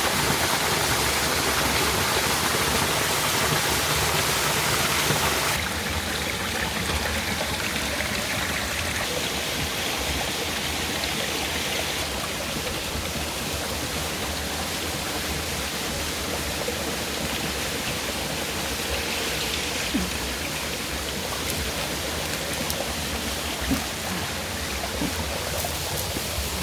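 Waterfall water rushing steadily. The rush steps down in loudness about five seconds in, and a couple of faint knocks come near the end.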